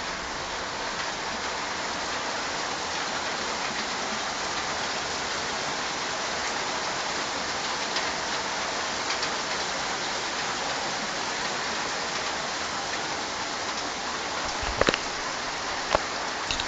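Torrential rain pouring down in a steady, even hiss, with a few sharp taps near the end.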